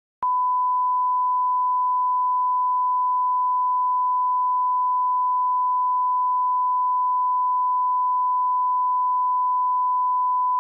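A 1 kHz sine-wave test tone, switched on abruptly a fraction of a second in and then held steady at one pitch and level. It is a line-up tone, reading 4 on a PPM meter.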